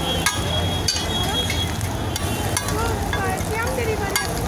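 Egg sizzling as it fries on a flat iron griddle, with a metal spatula scraping and clicking sharply against the griddle a few times.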